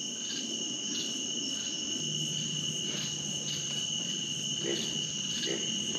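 Night-time chorus of crickets, a steady high-pitched trill that does not let up. A faint low hum joins about two seconds in.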